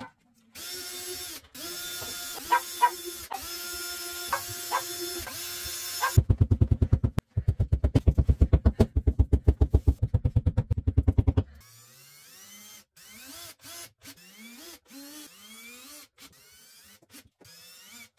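A power drill runs steadily with a few clicks. Then comes a rapid, even run of mallet blows, several a second and the loudest part. Last, a drill-driver spins up in short rising whirs, one after another, as the shelf screws go in.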